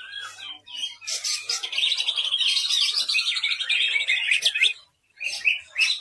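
Caged green leafbird (cucak ijo) singing a fast, continuous run of high, varied notes for about four seconds. It breaks off briefly near the end, then starts again.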